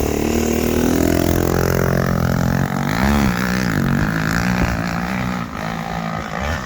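KTM 300 TPI two-stroke dirt bike engine running on the move. The revs drop at first, rise and fall briefly about three seconds in, then hold fairly steady.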